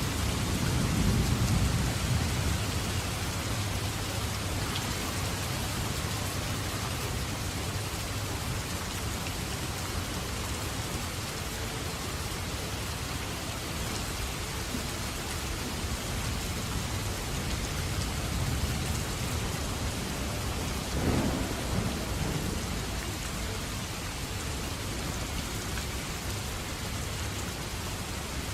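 Steady rain falling, with low rolls of thunder: one swell about a second in and another about three-quarters of the way through.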